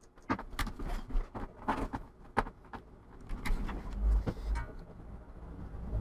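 Handling noises as equipment on the desk is moved and set up: a quick run of sharp clicks and knocks, then low bumps and rubbing about three seconds in.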